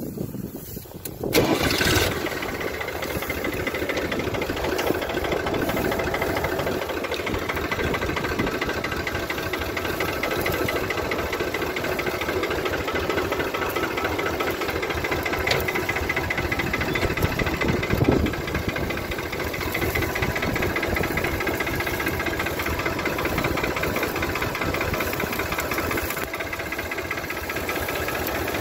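A farm tractor's diesel engine starts up about a second in, then runs steadily. It gets briefly louder once, about two-thirds of the way through.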